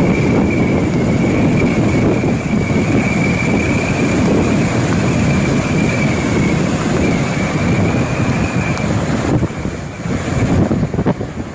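Hurricane-force wind roaring and buffeting the microphone in a loud, continuous rush. A thin high whistle runs through most of it and stops about three quarters of the way in.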